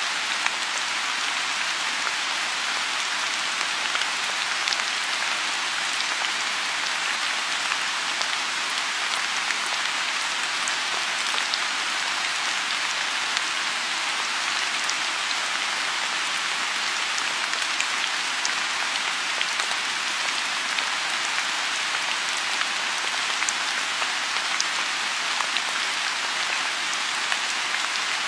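Steady rain falling on a lotus pond: a dense, even hiss with many scattered single drops ticking through it.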